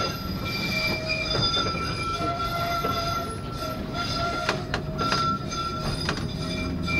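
NZH Blauwe Tram museum tram set A327+B303, heard from inside the car, with its wheels squealing on the rails in a curve: several steady high tones that fade in and out over a constant low running rumble. A few sharp clicks come from the track in the second half.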